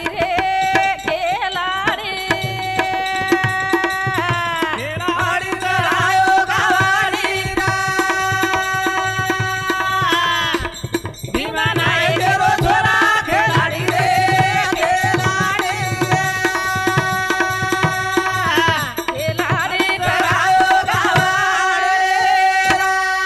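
A woman singing a Banjara devotional bhajan in long held notes, accompanied by a dholak drum keeping a steady rhythm and the clink of small hand cymbals. The music thins out briefly about halfway through.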